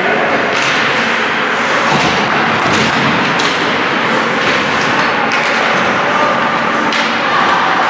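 Ice hockey game sounds in an arena: a continuous wash of rink noise with several sharp knocks from sticks and the puck hitting the boards.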